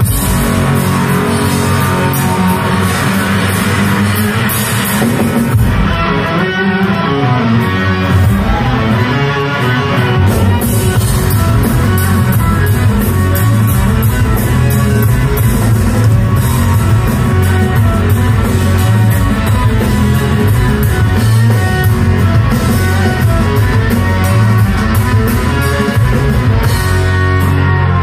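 Live rock band playing an instrumental stretch of a song: electric guitar, bass and drum kit with a steady beat, loud, heard from the audience floor of a hall.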